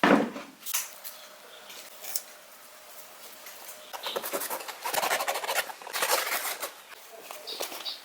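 A sharp knock, then a few seconds in a spell of rapid scratching and rubbing, with a few lighter scrapes near the end.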